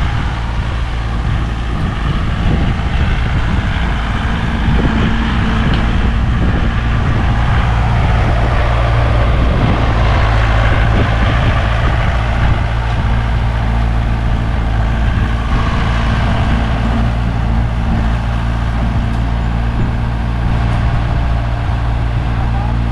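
Tractor engine running steadily with an even low hum.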